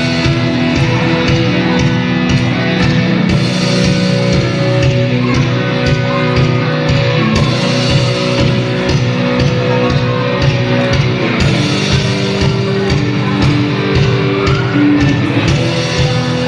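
Live band playing amplified rock music: electric guitar over a steady drum beat.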